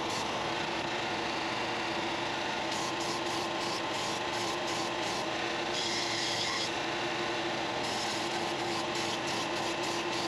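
Belt sander running with a steady hum while the edge of a glued-up cherry and walnut bowl is held against the moving belt, giving a continuous grinding rub of wood on abrasive. This is the edges being smoothed after glue-up.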